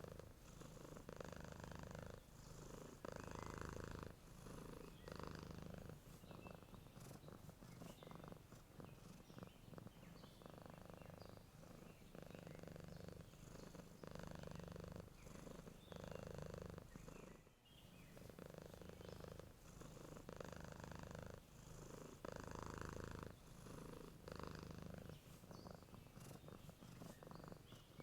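Domestic cat purring while asleep, the purr swelling and easing with each breath, about one breath every two seconds.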